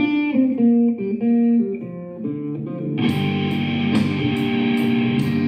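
Music from an Amazon Echo Dot 4th Gen smart speaker: a plucked guitar melody of single stepping notes, joined by a full band with a steady drum beat about three seconds in.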